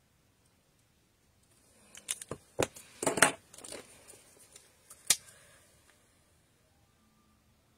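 Plastic clicks and knocks as Stampin' Blends alcohol markers are handled: one is capped and set down among the others, and another is picked up and its cap pulled off. A cluster of sharp clicks from about two seconds in, the loudest near three seconds, and one more sharp click near five seconds.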